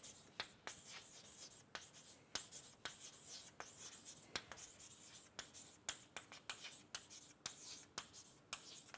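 Chalk writing on a blackboard: a quick, irregular run of faint taps and scratches as the chalk strokes go down, a few each second.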